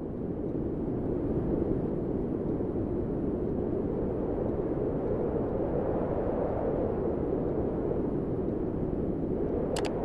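Steady rushing of a Honda Mobilio's electric radiator and AC condenser fans running with the AC on, smooth and free of the earlier fan noise after the fan was replaced. A quick double click near the end.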